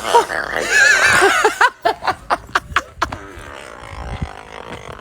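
A person's high-pitched, wavering laugh that breaks into a quick string of short sharp huffs about two seconds in, then trails off.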